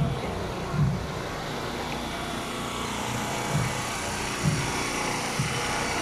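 Outdoor procession ambience: a steady engine-like hum under a haze of street and crowd noise, with dull low thumps about once a second.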